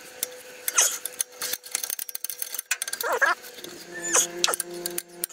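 Exhaust flange bolts being undone by hand tool under a ute: irregular light metal clicks and a few short squeaks as the nuts turn on their threads.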